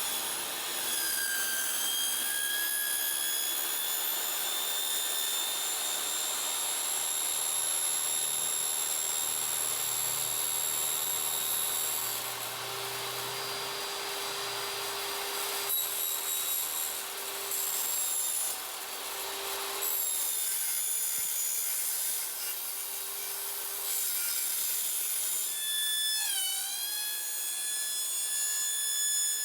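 Electric power tool cutting 14-gauge sheet metal, running steadily with a motor whine over the cutting noise. Near the end the whine dips in pitch for a moment as the motor loads down.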